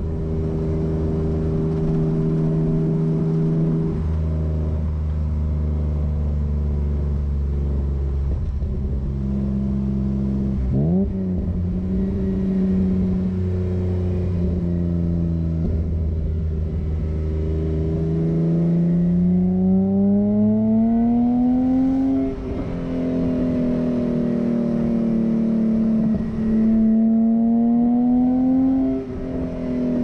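1989 BMW E30 320i Touring's 2.0-litre M20 straight-six, heard through its Scorpion exhaust from the rear bumper. It cruises at steady revs with a quick jump in revs about a third of the way in. Then the revs climb twice, each time dropping back with a brief dip as it shifts up.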